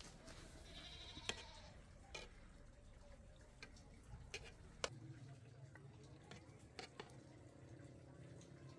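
Faint clinks of a metal ladle against a steel cooking pot and serving plate as rice is scooped out, about six light sharp taps spread over several seconds.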